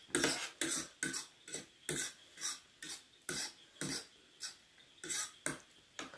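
A person breathing out in quick, even puffs through the mouth, a little over two a second, reacting to the burn of very hot and spicy instant noodles.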